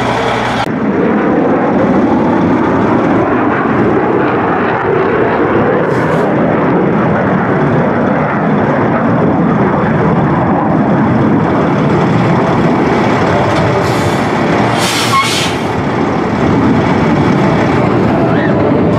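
Heavy eight-wheeled military cargo truck's diesel engine running steadily and loud. Short air hisses come about six seconds in and again late on.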